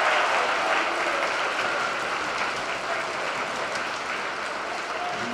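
Crowd applauding and cheering a goal, the noise slowly dying away.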